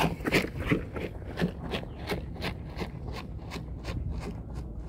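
Footsteps crunching on a gravel path, loudest in the first second and a half, then a steady, fainter tread of about three steps a second.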